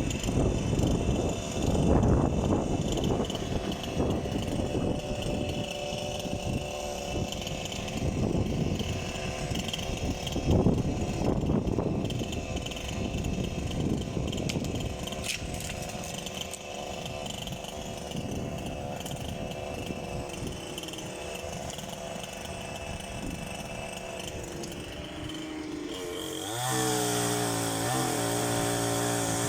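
Energoprom PTsB-16 petrol chainsaw running, its engine surging and easing as it cuts poplar limbs. Near the end it revs up to a high, steady pitch.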